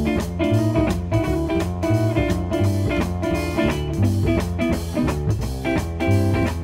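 Live band playing an instrumental break with guitar over bass and drums, in a steady swinging beat.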